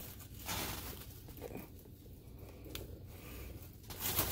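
Faint handling sounds of shoes being turned over in the hands: light rustles and a few soft ticks, with louder rustling starting near the end.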